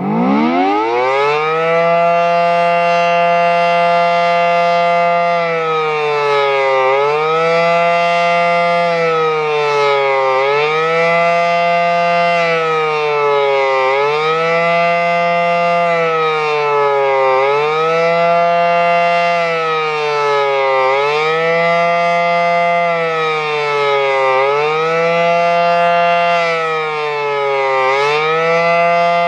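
Federal Signal SD-10 outdoor warning siren winding up from a standstill, its pitch climbing steeply to full speed within a second or two. It holds there for about five seconds, then sounds a fast wail: the pitch dips and climbs back about every three and a half seconds.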